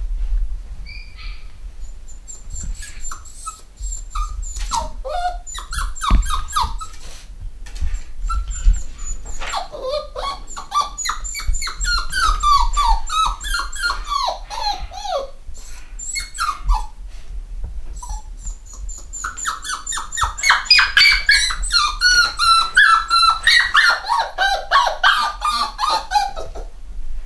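Cockapoo puppies whining: short high cries that fall in pitch, coming in quick runs, the loudest and fastest in the last several seconds, with scattered sharp clicks between.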